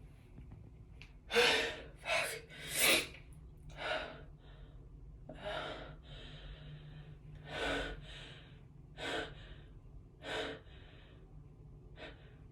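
A woman's sharp gasping inhales as a sneeze builds up but does not yet come: three loud gasps in quick succession, then several more spaced a second or so apart.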